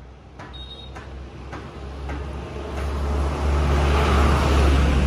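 A diesel box truck approaches and passes close by, its engine hum and tyre noise building to the loudest point about four to five seconds in. A faint regular ticking, under two ticks a second, shows early on.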